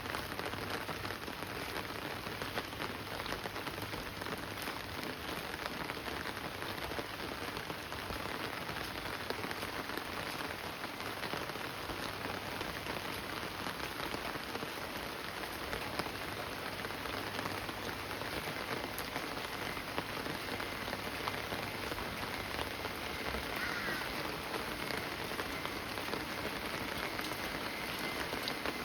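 Monsoon rain falling steadily, a dense even hiss of many small drop hits. A faint thin high tone runs through the second half.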